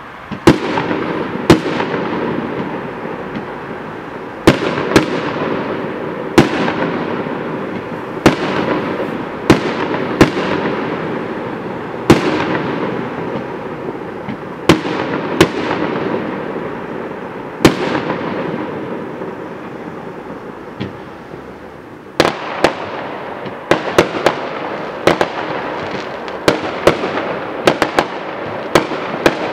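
Aerial fireworks shells bursting with sharp bangs every second or two, each followed by a long fading rumble of echo. From about two-thirds of the way in, the bangs come in a quicker, denser series.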